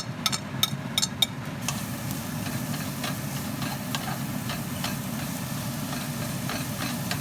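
Sliced onion frying in oil in a pan, sizzling steadily with faint crackles. A spatula clicks against the pan a few times in the first second and a half. A steady low hum runs underneath.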